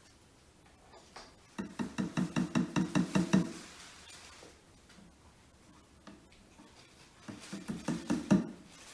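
Claw hammer tapping short wooden dowels into the edge of a flat-packed shelf panel. About a dozen quick light taps come in a run, about six a second, growing louder. A shorter run of taps follows near the end, and its last strike is the loudest.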